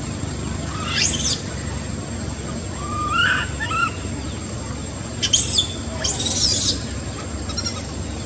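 Young macaque giving a handful of short, high-pitched squeals and whimpers that rise and fall in pitch, with a harsher scream about six seconds in.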